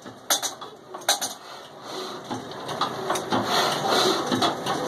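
Sharp metallic clinks and knocks from an old Ruston Hornsby stationary engine being started, with its heavy flywheel turning. A denser clatter builds up from about two seconds in.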